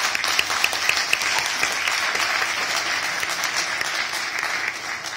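Audience in a lecture hall applauding: many hands clapping at once, dying down slightly near the end.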